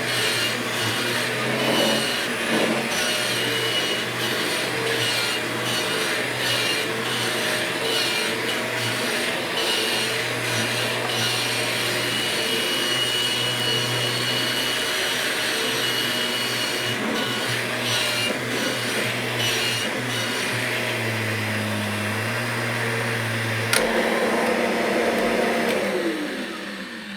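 Kirby G6 upright vacuum cleaner's motor running steadily. Near the end there is a click, and the motor winds down, its pitch falling as it spins to a stop.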